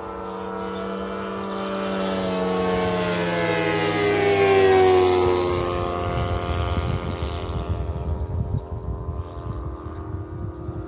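Radio-controlled model warplane's nitro engine on a fly-by: it grows louder as the plane approaches, passes about halfway through with its pitch dropping, then fades away. Wind buffets the microphone in the second half.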